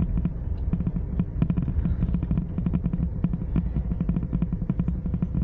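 Maruti Gypsy driving along a rough mountain road, heard from inside the cabin: a steady engine and road drone with frequent sharp rattling clicks from the body and fittings.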